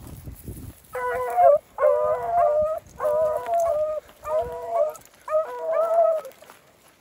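Beagle baying on a rabbit scent: five drawn-out, ringing bays in quick succession, beginning about a second in.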